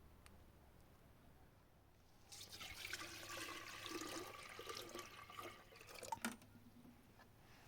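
Water splashing or pouring for about four seconds, starting about two seconds in and stopping abruptly after a couple of sharp knocks.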